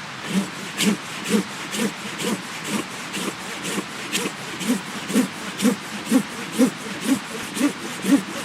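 Hand saw cutting through a fallen wild cherry trunk in quick, even strokes, about two a second, each a short rasp with a singing tone from the blade.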